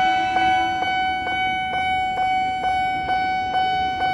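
Nippon Signal level-crossing warning bell ringing with the barrier down, a steady ringing tone struck about twice a second. It warns of an approaching train.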